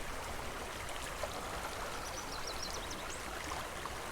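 Small spring creek running steadily over a broken, riffled surface, a continuous water sound. About two seconds in comes a short quick run of high chirps.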